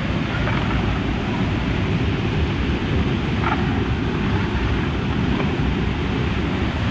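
Steady rushing of a waterfall, an even wash of water noise with no change in level.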